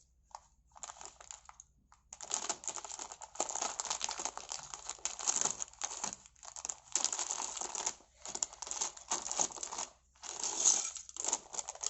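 Plastic bag of Lego bricks crinkling and crackling as it is handled and opened, with small clicks of bricks shifting inside. It starts about two seconds in and goes on, with short pauses, until near the end.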